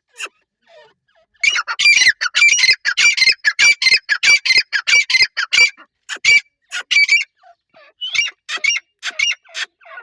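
Teetar (francolin) calling: a fast run of loud, shrill, repeated notes starting about one and a half seconds in, then a few shorter groups of calls with gaps between them.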